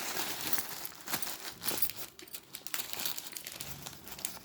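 Packaging crinkling and rustling as jewellery is handled and unpacked, irregular, with small clicks.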